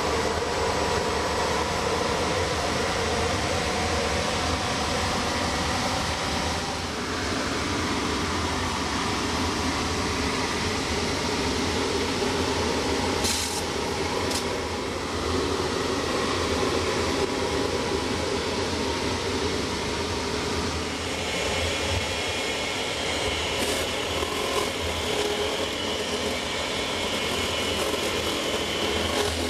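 Rotary barrel grinder's cutting head skiving the inside wall of a wooden cask: a steady, loud machine grinding run. A couple of sharp ticks come through, and a higher hiss joins about two-thirds of the way in.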